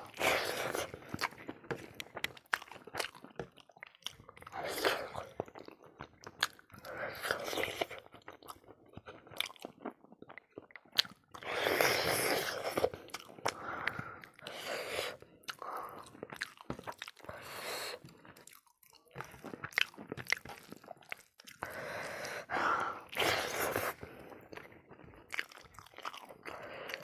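Close-miked chewing and crunching of hand-fed mouthfuls of rice and side dishes, with wet mouth sounds in irregular bursts and frequent short clicks of fingers on a steel plate.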